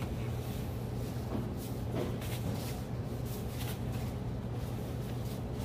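Red sail fabric rustling as it is gathered and smoothed by hand in short, irregular swishes, over a steady low hum.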